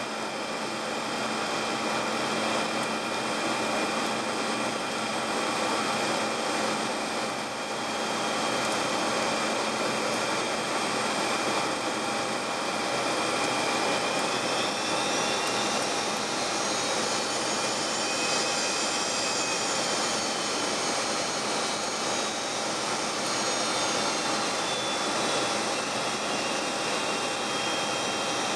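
Steady cockpit noise of an aircraft on final approach: a rush of airflow and engine noise with a steady whine in it. In the second half a faint high whine rises and then falls back.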